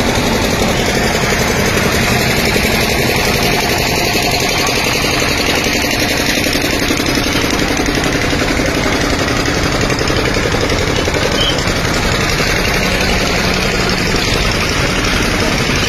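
A vehicle engine idling steadily and loudly, with no pauses.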